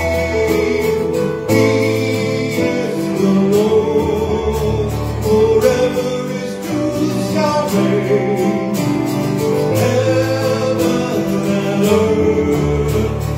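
A man singing a gospel-style worship song with acoustic guitar and keyboard accompaniment.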